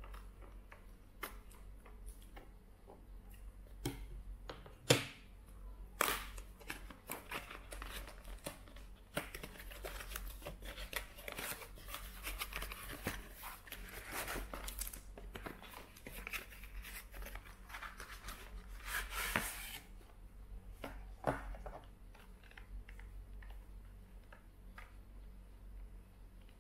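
Steel scissors snipping through packing tape on a paper-wrapped cardboard parcel, a few sharp snips in the first six seconds, then about ten seconds of paper and tape tearing and crinkling as the wrapping is pulled off.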